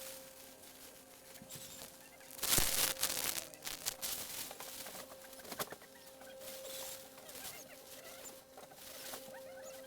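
Faint high squeaks of newborn kittens over a steady hum, with a burst of rustling about two and a half seconds in.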